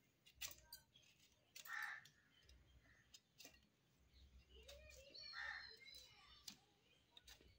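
Faint scraping and clicking of a kitchen knife blade working at a piece of produce held in the hand, with a few short bird calls in the background.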